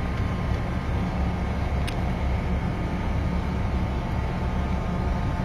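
Wind buffeting the microphone: a steady low rumble, with one short click about two seconds in.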